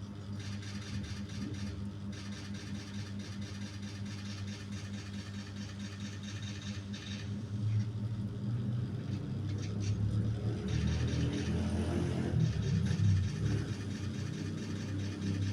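Motorcycle engine running steadily, then revved up about halfway through, getting louder and rougher before easing back near the end.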